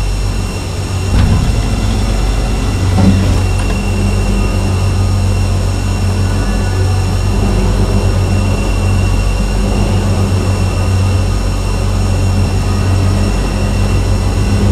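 Steady, loud low rumble of a large jet aircraft in flight with its main landing gear extended: airflow and engine noise under the fuselage, with a faint steady high whine. A brief louder bump about three seconds in.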